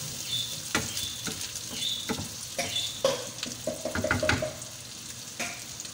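Sliced hot dog and ham sizzling in oil in a frying pan, with a wooden spatula stirring and scraping against the pan in irregular strokes.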